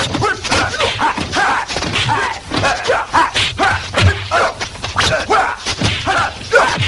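Kung fu film fight soundtrack: a rapid run of dubbed punch and kick impact effects, mixed with the fighters' short shouts and grunts.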